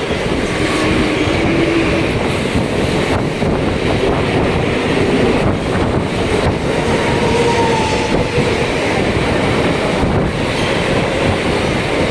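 Mumbai local train running along the track: a steady rumble and rattle of wheels on rail, with an occasional clack every few seconds.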